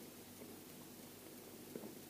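Faint chewing of a piece of sausage, with a few soft mouth clicks, one right at the start and one near the end, over a low room hum.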